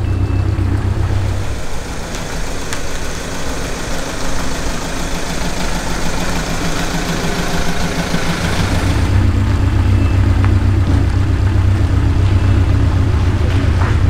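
Fiat 500 Group 4 race car's rear-mounted engine running at idle with its engine lid open. Its note goes higher for several seconds in the middle, then settles back to a low, even idle about two-thirds of the way through.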